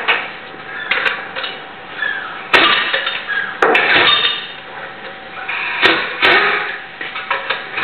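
Metal clanks, knocks and clinks of exhaust sections and hand tools being worked into place under a Peugeot 206, with several sharp ringing strikes, the loudest about two and a half seconds in and again near six seconds.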